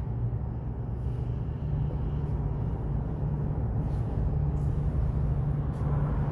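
Steady low rumble of road traffic passing over a nearby road bridge, with a droning hum from the vehicles.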